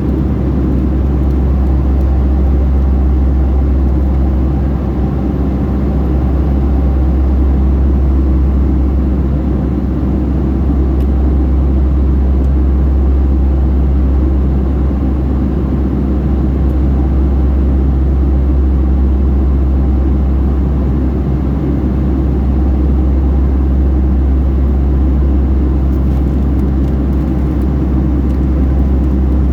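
Cabin noise inside a Boeing 757-300 airliner: a steady, loud low drone of the jet engines with airflow rumble, holding even throughout.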